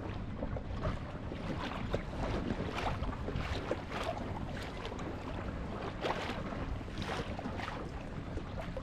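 Lake water splashing against the hull of a moving boat in repeated short splashes, over a steady low rumble.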